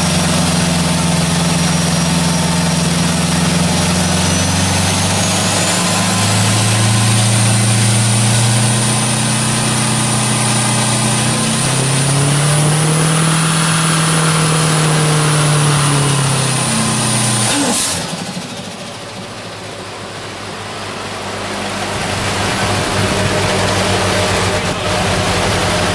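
Mazda FE3 turbocharged four-cylinder engine running hard and steady, its note stepping up about six seconds in, with a high turbo whistle rising and then holding. About eighteen seconds in the engine note cuts off suddenly, leaving a rushing noise that swells again near the end.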